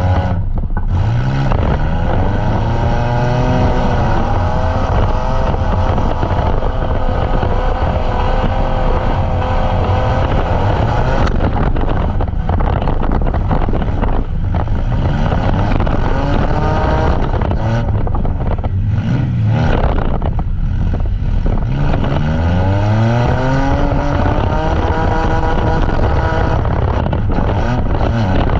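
Derby vans' engines revving hard, over and over, with the pitch sweeping up on each throttle push. The sound is loud and runs without a break.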